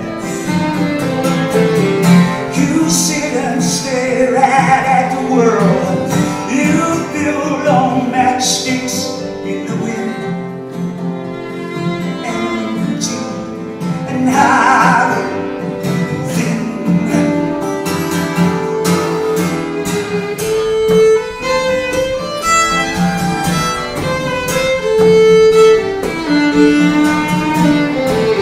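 Fiddle and guitar playing an instrumental passage of a folk song together.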